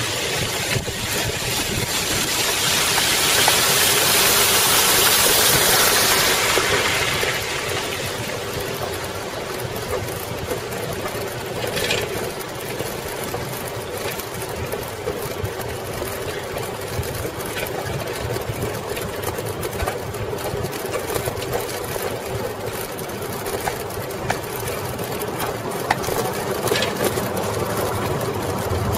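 Ride noise of a Coker Monster Cruiser picked up by cameras mounted on the bike: its 36-inch tyres rolling over brick pavers, with scattered rattles and clicks and a steady wind noise. In the first several seconds the hiss of a splashing plaza fountain swells and fades as the bike passes.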